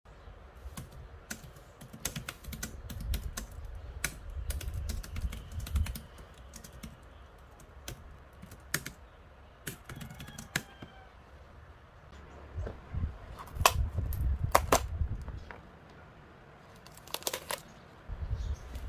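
Keys being typed on a Keychron K3 mechanical keyboard: irregular clicks coming in short clusters, over low dull thumps.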